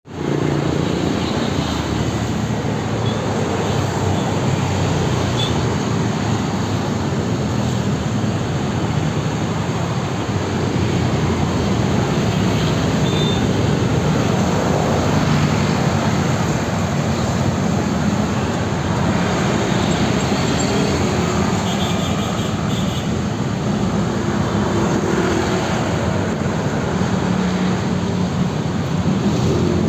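Steady road traffic noise of passing vehicles.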